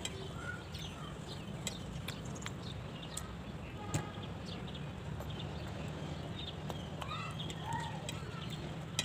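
Eating by hand: chewing, lip smacks and fingers working food on a steel plate, heard as scattered small clicks over a steady low hum.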